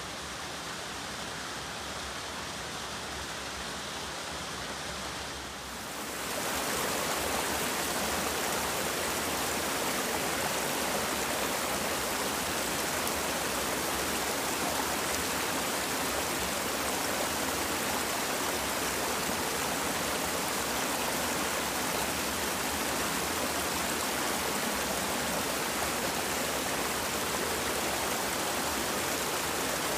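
Rocky mountain stream rushing and splashing over boulders and small cascades, a steady rush of water. About six seconds in it becomes louder and brighter, closer to a small waterfall.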